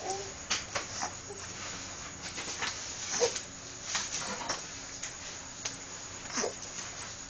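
A person hiccuping several times: short, sharp catches of breath at irregular intervals, about one to two seconds apart.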